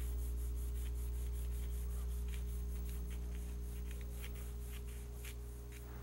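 Pencil shading on drawing paper: quick, faint scratching strokes several times a second, thinning out near the end, over a steady low electrical hum.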